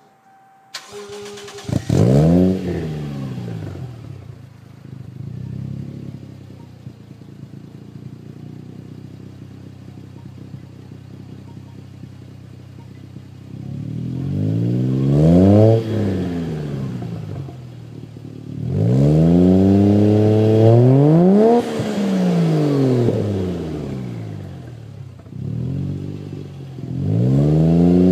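Lexus SC300's 1JZ inline-six through a single-exit Supra Mk IV exhaust: after a brief steady tone, the engine starts about two seconds in with a rev flare and settles to idle. It is then revved several times, the pitch rising and falling, with the longest rev around the middle and another rising near the end.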